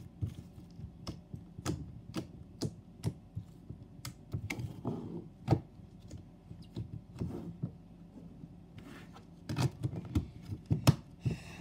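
Thick slime being squished and kneaded by hand, then pressed into a clear plastic tub, with an irregular run of sharp pops and clicks that grows busier near the end.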